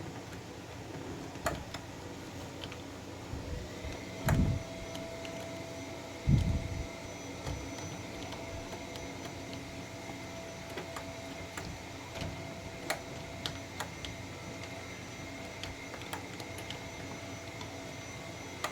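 Door knob parts being handled and fitted: scattered light clicks and taps, with two louder knocks about four and six seconds in, over a steady faint hum.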